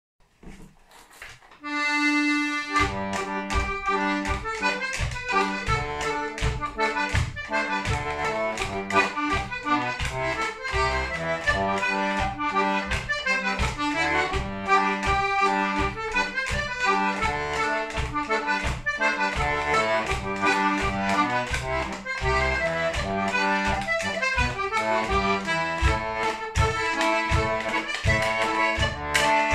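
A melodeon, a two-row button accordion, playing a traditional tune solo: the melody sits over a steady pulse of bass and chord notes. One held chord sounds about two seconds in, and the tune proper starts just under a second later.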